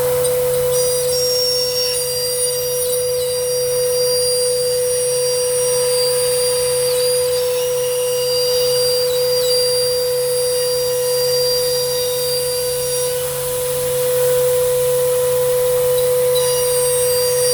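Gerber Sabre CNC router running a job: the spindle holds a steady high whine over a low hum. Several higher, thinner whines switch on and off as the machine moves.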